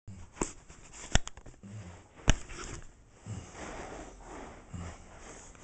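Three sharp knocks close by, with scuffing and soft thumps of movement on a carpeted floor.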